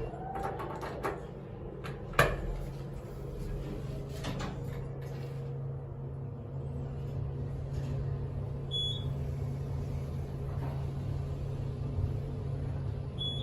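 Otis elevator starting a trip upward: the doors close with a few clunks in the first couple of seconds, then a steady low hum as the car travels. A short high floor chime sounds about nine seconds in and again at the end.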